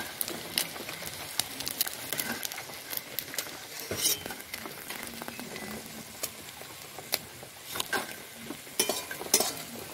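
Small prawns sizzling in hot mustard oil in a steel karahi while a metal spatula scrapes them out and onto a steel plate, with repeated sharp clinks and scrapes of metal on metal over the steady sizzle.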